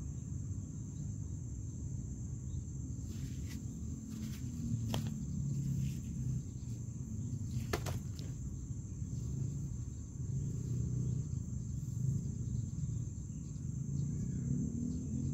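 Crickets trilling steadily at one high pitch over a low rumbling background, with two faint clicks about five and eight seconds in.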